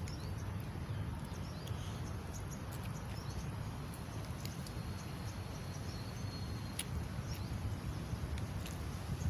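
Outdoor background with a steady low rumble and faint bird chirps, and a thin high tone held for about two seconds midway. A few light clicks come from a plastic spoon and fork working food on a paper wrapper.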